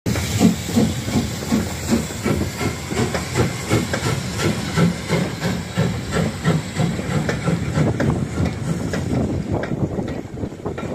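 Lancashire and Yorkshire Railway A Class 0-6-0 steam locomotive 52322 pulling a train of coaches away, its exhaust chuffing in a steady rhythm under a hiss of steam. The beats grow weaker near the end as it draws off.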